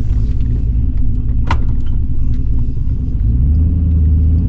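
Junkyard 5.3-litre LS V8 (aluminium L33) with a Truck Norris camshaft running under the truck, still a little rough on a first, partial tune; its note steps up about three seconds in as the torque converter is tried. A brief sharp click about a second and a half in.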